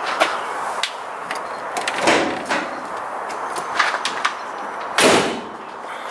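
Knocks and clicks from a car's door and bodywork being handled, with two louder thuds about two and five seconds in.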